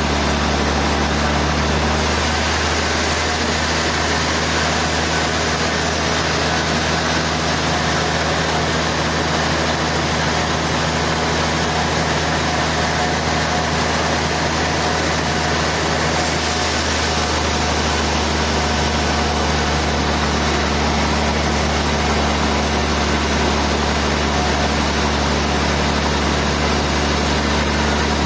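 Portable sawmill running steadily: a constant low engine drone under a dense, even hiss, with slight shifts in tone about two seconds in and again midway.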